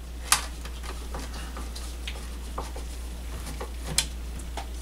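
Scattered light clicks and taps of a screwdriver and gloved hands handling the plastic housing of a Bose Wave CD radio at its speaker. The sharpest clicks come about a third of a second in and again about four seconds in, over a steady low hum.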